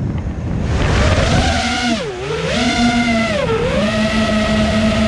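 FPV quadcopter's electric motors whining, the pitch sagging and climbing twice with throttle changes before holding steady, over a rush of wind noise on the drone's own microphone.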